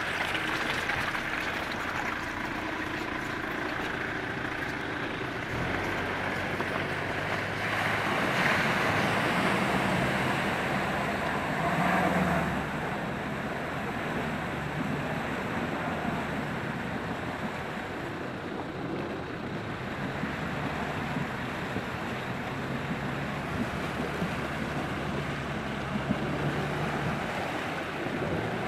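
A 4x4 van's engine running under load as it wades through a deep, muddy flooded rut, with water sloshing and surging around the wheels and wind buffeting the microphone. It grows louder around eight and twelve seconds in.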